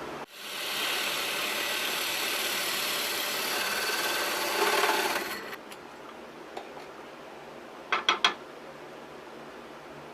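An MDF shop knob being shaped by abrasion: a steady rubbing rasp for about five seconds that swells just before it stops. Near the end come three quick, sharp clicks.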